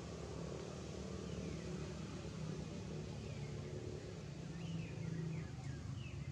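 Outdoor ambience: a steady low rumble, with a few faint, short, falling chirps about a second and a half in and a quick run of them near the end.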